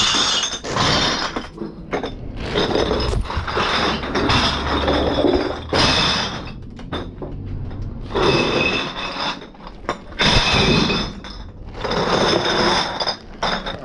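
Bags of empty bottles and cans being handled and shifted, crinkling plastic with the clink and rattle of the containers inside, in repeated bursts every second or two.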